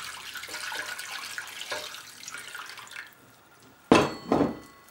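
Boiling water pouring from a glass jug into a roasting tray, a steady splashing that stops about three seconds in. Near the end come two loud knocks in quick succession.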